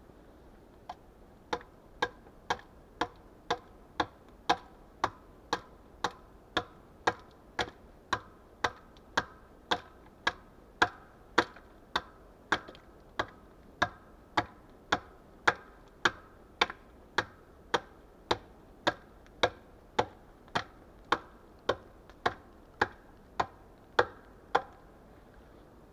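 Steady, evenly spaced knocks of a hand tool striking wood, about two a second, starting about a second in and stopping shortly before the end.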